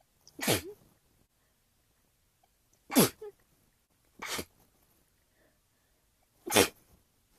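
A person's sneezing fit: four sharp sneezes a second or two apart, each dropping in pitch.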